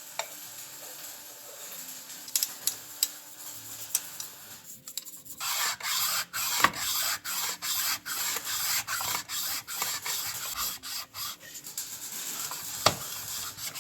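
Hand sanding of an outboard's power-head gasket mating surface, oiled, to flatten it. A few light clicks of handling, then from about five seconds in steady back-and-forth rubbing strokes, about two a second.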